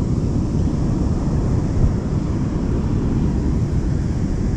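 Steady wind rumble on the microphone, with the wash of surf behind it.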